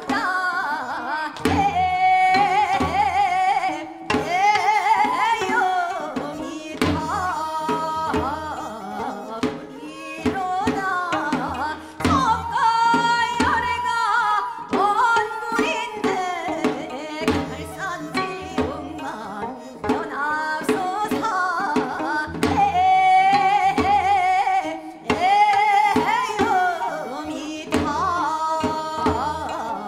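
Seodo sori, Korean folk song of the western provinces, sung with a strong wavering vibrato over a regular drum beat.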